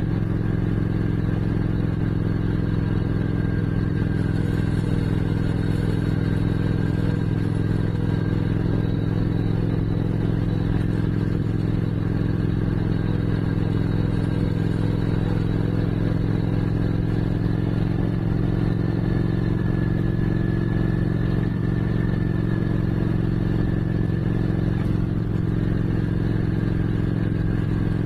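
Motorcycle engine running steadily at one even pitch, with no revving or gear changes.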